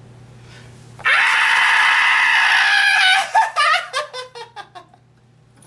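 A man's acted horror-movie scream, loud and held for about two seconds from about a second in, then breaking into short falling gasps and sobs that die away.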